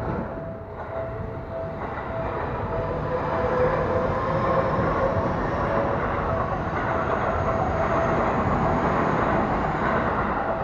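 A Seibu Railway electric commuter train running through a level crossing, its steady rail noise swelling a few seconds in. A steady repeating tone, the crossing's warning bell, rings through it.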